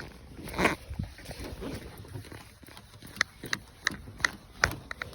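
Tools working a car's lug nuts: a short scraping sound about half a second in, then from about three seconds a run of sharp metallic clicks, roughly three a second.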